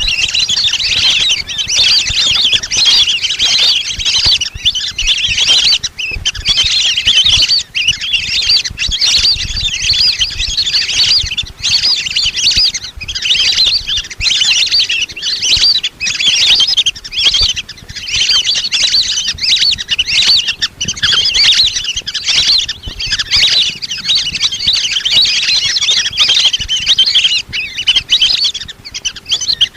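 A flock of lesser whistling ducks calling without a break, many high whistled chirps overlapping: a recording played as a lure to draw in whistling ducks.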